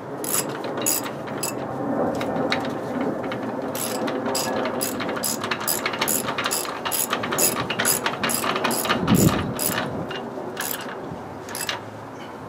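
Hand ratchet wrench clicking in repeated strokes, two to three clicks a second, as the rear axle bearing retainer plate nuts are tightened. A dull thud about nine seconds in.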